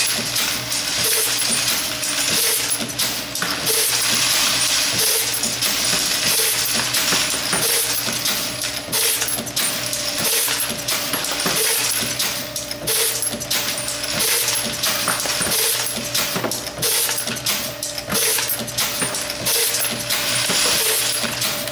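Camdex rifle case processor running, brass cases clinking and rattling through its die stations. A steady motor hum sits under it, with a regular mechanical beat a little faster than once a second.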